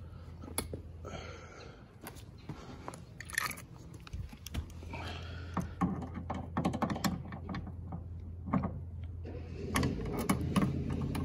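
Small metallic clicks and taps of a hex key turning in a brass refrigerant service valve on a mini-split outdoor unit as the valve is opened, over a low steady hum.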